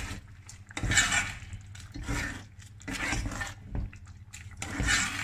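A spoon stirring and scraping through brown rice cooking in broth in a stainless steel pot, in about five separate strokes roughly a second apart.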